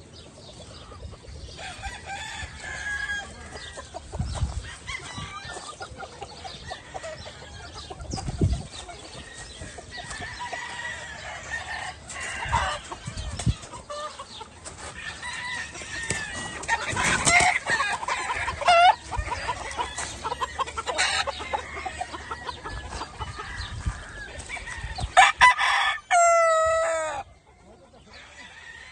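Gamefowl chickens clucking and calling on and off, with a few dull thumps, and one long, loud rooster crow near the end.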